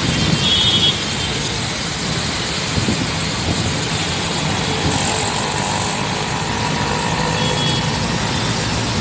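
Steady outdoor background noise, a dense hiss and rumble with no single clear source. A faint short high tone sounds about half a second in and again near the end.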